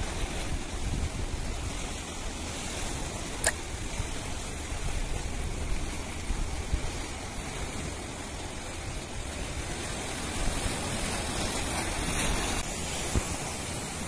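Steady rushing of sea waves washing through the shallows, with wind rumbling on the microphone. One short click about three and a half seconds in.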